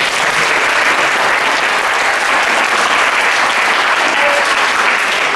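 Audience applauding: many people clapping at an even strength.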